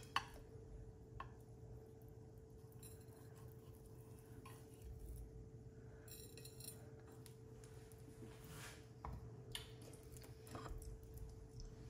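Quiet, scattered taps and clinks of a knife against ceramic plates as a slice of soft turrón flan is cut and lifted onto a small plate, over a low steady hum.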